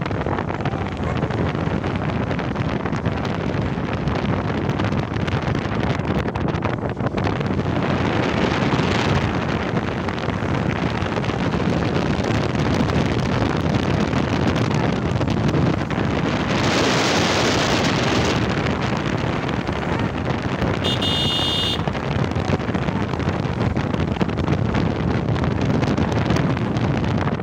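Wind buffeting the phone's microphone on a moving motorbike, a steady rushing noise over the low rumble of the ride. A stronger gust of rush comes about two-thirds of the way through, and a short high-pitched beep follows a little later.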